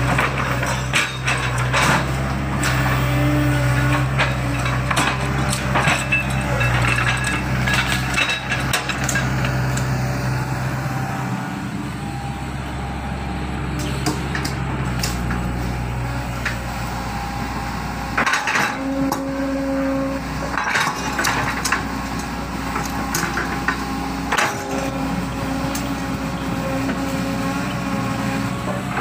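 Hydraulic excavator's diesel engine running steadily, with repeated metallic clanks and knocks from the working machine scattered throughout.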